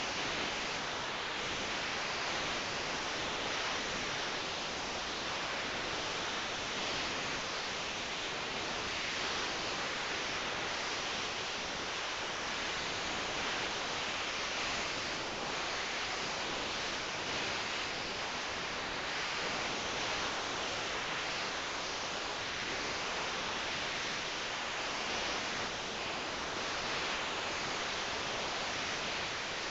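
Steady, even hiss of background noise with no distinct snore.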